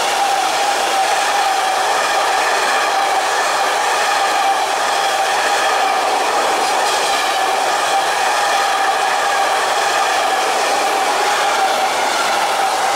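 Intermodal freight wagons carrying containers and semitrailers rolling past at speed: a steady rush of wheels on rail with a steady ringing tone over it.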